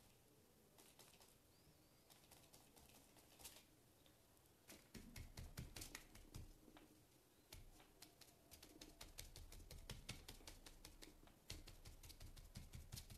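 Quick light taps of a paint-loaded sponge dabbed on paper on a table, sparse at first and then coming thick and fast from about five seconds in, with a few low thuds. The dabbing is blending orange and yellow paint into a smooth gradient.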